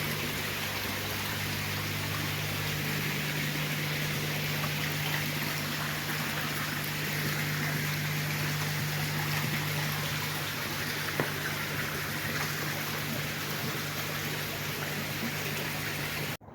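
Steady rush of running water, as from koi pond filtration, over a steady low hum.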